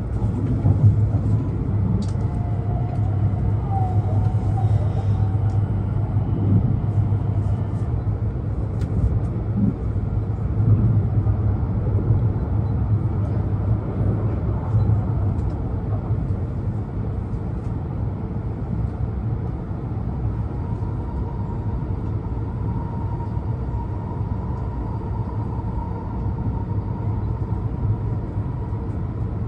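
E2 series Shinkansen running, heard from inside the car: a steady low rumble of the train in motion. A faint steady whine sets in about two-thirds of the way through.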